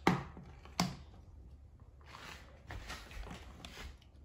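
Two sharp knocks about a second apart as hard plastic toy figures bump on a hard countertop, followed by faint rustling as the toys are handled and moved.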